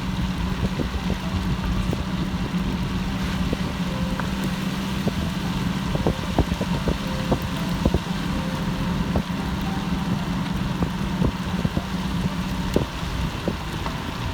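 Car driving in the rain: a steady low drone of engine and tyres with scattered light taps of raindrops. The drone eases near the end.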